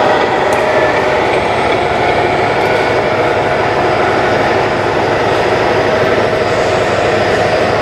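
Scale RC trucks' sound modules playing steady diesel-engine running sounds, an unbroken mechanical drone with a few held tones.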